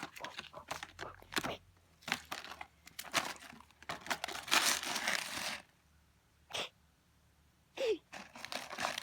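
Scattered crunching, crinkling and tapping as a puppy plays and chews, with a longer rustling burst around the middle and a couple of short noises near the end.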